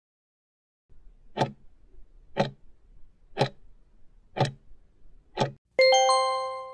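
Countdown timer sound effect: five clock ticks a second apart as the time runs out, then a chime of several ringing tones at zero that fades away.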